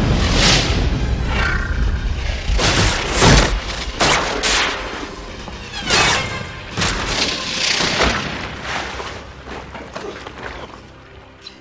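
Movie action sound effects: a string of heavy explosion booms and crashing metal impacts over the first eight seconds or so, with film score music underneath, the blasts dying away near the end.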